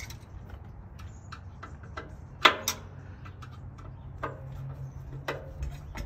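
Hand tools clinking and knocking against the steel trailer tongue and jack mounting as someone works underneath, in irregular taps and clicks, with one loud ringing clank about two and a half seconds in and a second just after.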